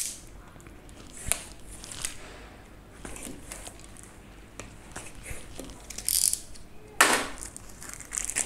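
Small knife slitting the seal on a cardboard smartphone box: scattered light scrapes and clicks, then a louder cardboard scrape about seven seconds in as the box is worked open.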